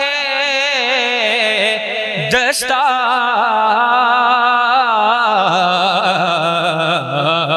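A man chanting a naat, an Urdu devotional poem, in a sung recitation style: long held, wavering melismatic notes with a brief break about two seconds in, and the melody dropping lower about five and a half seconds in.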